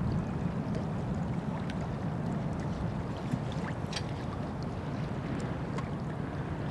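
Steady low rumble of wind on the microphone, with scattered faint ticks and a short high sound about four seconds in.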